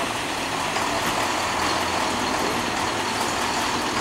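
Heavy truck and crane engines running steadily, giving a constant mechanical din with no sudden knocks.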